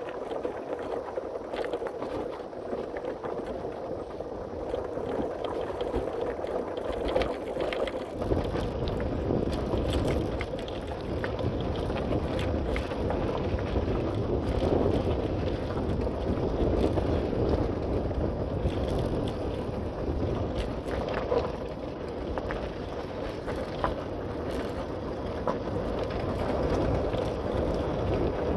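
Steady riding noise from a bike on the move: rolling and rattle with wind, and a heavy low wind rumble on the microphone from about eight seconds in.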